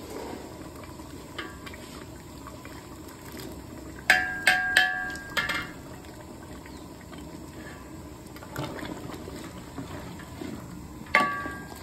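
Mutton curry simmering in a large pot while a steel ladle clanks sharply against a steel mixer jar several times about four to five seconds in, scraping out ground garlic paste. Softer knocks follow as the ladle stirs the thick curry, and one more ringing clank comes near the end.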